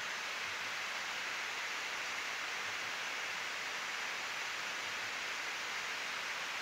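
Steady rushing hiss of cockpit noise on a Boeing 777-200F flight deck in cruise at high altitude, mostly air rushing past the windscreen along with the ventilation, without change.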